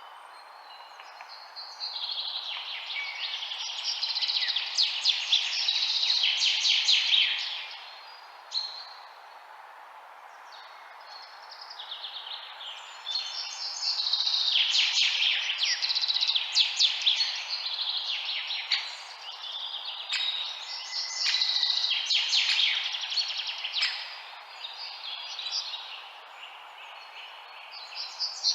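Many small birds chirping and twittering together, in waves of dense, rapid calls several seconds long with quieter lulls between, over a steady background hiss.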